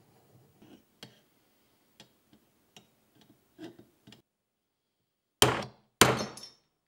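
Faint clicks and scrapes of a vernier caliper being set and scribed on a stainless steel plate, then two sharp metallic strikes with a short ring, about half a second apart near the end, as a centre punch marks the ball-detent hole positions.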